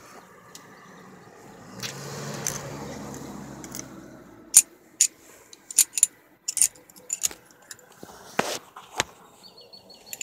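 Metal blow-off valve parts handled and screwed together: a string of sharp light metallic clicks as the spring goes in and the cap is twisted on. A rushing noise with a low hum comes before them, about two seconds in.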